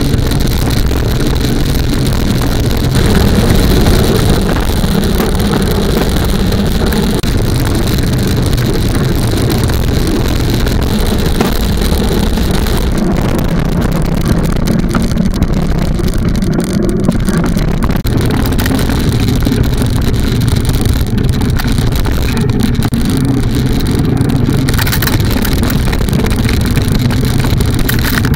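Mountain bike rolling fast over a dirt trail: a steady low rush of wind buffeting a bike-mounted camera's microphone, mixed with tyre rumble and small rattles from the bike.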